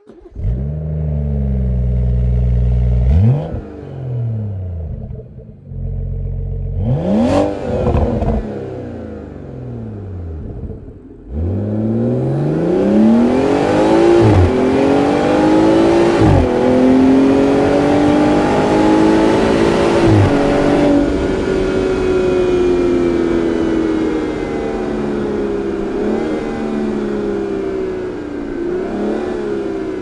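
BMW 540i's turbocharged 3.0-litre straight-six through the M Performance sport exhaust. It idles and is blipped twice, then accelerates hard with a rising note, drops at a gear change near 16 s, and falls slowly as the car slows.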